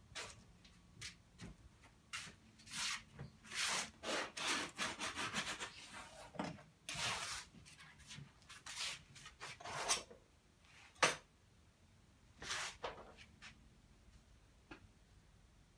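Oil paint being worked over unstretched canvas in irregular rubbing strokes, a dozen or so of them, with one sharp knock about eleven seconds in.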